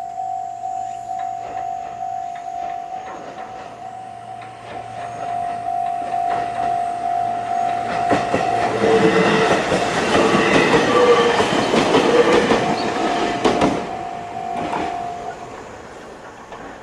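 An electronic level-crossing bell of the JR Central type rings in a steady pulsing tone while a Joshin Electric Railway 7000-series train passes over the crossing, its wheels clattering over the rails, loudest about ten to thirteen seconds in. The bell stops about a second before the end.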